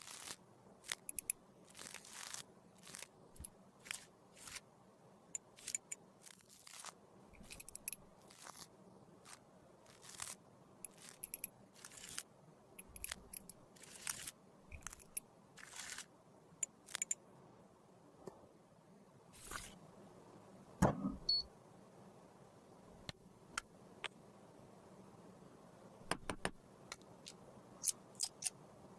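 Small plastic and metal makeup containers and tools being handled: a run of sharp clicks and taps with light scraping, several a second at first, sparser from about 18 seconds in, with one louder knock a few seconds later.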